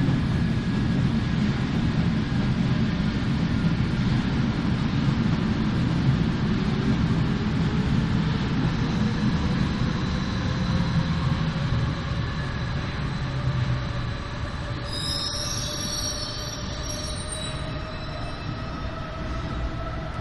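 Berlin U-Bahn HK-type train running into an underground station: heavy rumble of wheels on rails with a slowly rising electric whine. About fifteen seconds in, high-pitched brake squeals come in as it slows to a stop.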